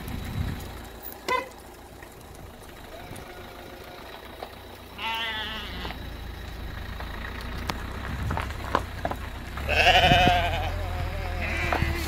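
Sheep bleating: a short call about a second in, a long wavering bleat about five seconds in and a louder one near the end. A steady low rumble runs underneath.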